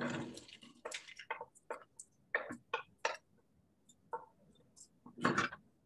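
A series of about a dozen short, irregular clicks and scrapes, the loudest at the very start and again about five seconds in.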